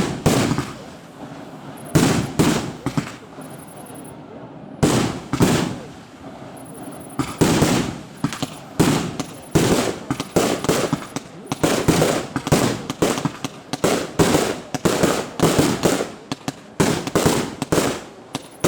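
Display fireworks bursting in a string of loud bangs. They come a few seconds apart at first, then in quick succession from about seven seconds in.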